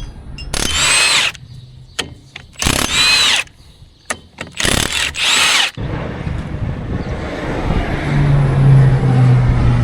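Power drill run in three short bursts of about a second each, its motor whine rising and falling in pitch, then a steadier rumbling noise with a low hum that grows louder over the last few seconds.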